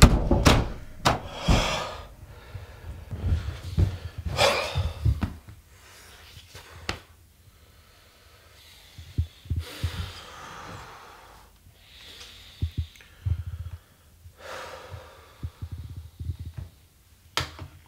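A man breathing heavily with a series of loud, airy sighs and exhales. There are a few dull low thuds in the first few seconds.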